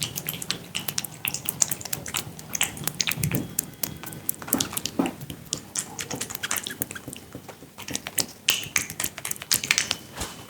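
A barber's hands massaging a head: a dense run of sharp, uneven clicks and taps from fingers working on skin and hair, with a few duller thumps.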